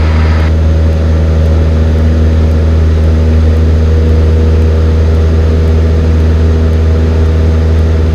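Cessna 172N's four-cylinder Lycoming engine and propeller running at a steady cruise-climb power in flight, heard as a constant low drone in the cockpit.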